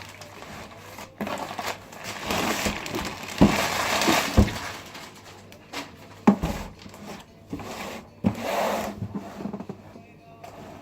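Packaging being pulled open and handled: rustling and crinkling, broken by several sharp knocks and thumps.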